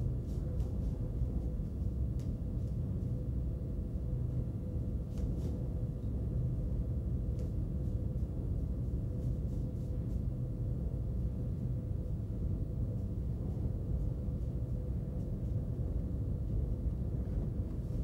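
Steady low hum and rumble of background noise with a faint held tone and no distinct events.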